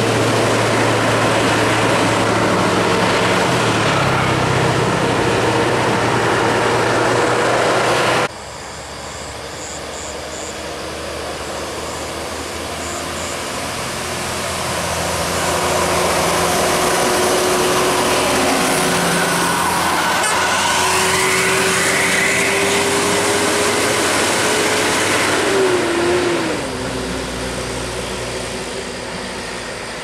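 Large coach buses passing on a road: engine hum and tyre noise from a bus pulling away, then, after an abrupt change about eight seconds in, another bus approaching with its engine note slowly rising, loudest as it goes by and falling off sharply near the end.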